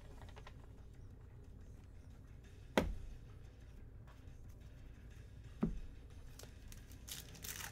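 Trading cards being handled on a table, with two sharp taps, the first about three seconds in and the second about three seconds later, over a faint low hum.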